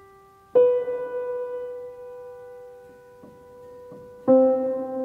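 Piano intro jingle: notes struck about half a second in and again about four seconds in, each left to ring and fade slowly.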